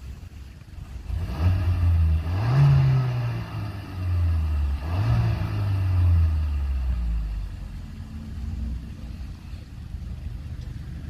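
Kia XCeed 1.5 T-GDi turbocharged four-cylinder petrol engine, heard at the tailpipes, revved twice from idle, each rev rising and falling over a couple of seconds, then dropping back to a steady idle about eight seconds in.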